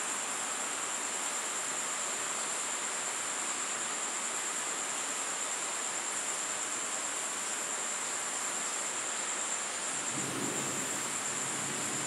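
Steady hiss of rain with a continuous high insect trill over it. A faint low rumble comes in about ten seconds in.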